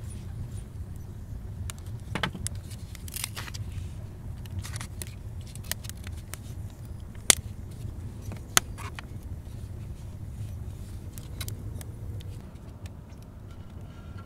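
Wood fire burning in an adobe rocket stove, a low steady rumble with scattered crackles and clicks of thin sticks being handled. Two sharp cracks stand out past the middle, about a second apart.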